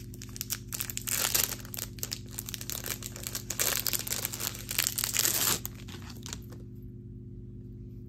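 Small clear plastic jewelry packaging crinkling and rustling as it is handled and opened by hand, in uneven bursts, stopping about six and a half seconds in.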